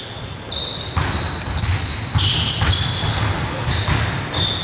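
Basketball game on a hardwood sports-hall court: players' shoes squeaking on the floor in many short, high squeals, over footfalls and the knocks of the ball bouncing.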